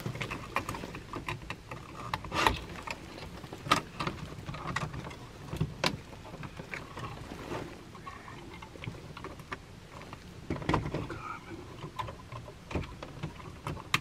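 Irregular clicks, taps and rustling as thermostat wires are handled and a small screwdriver works the terminal screws of a plastic zoning control panel.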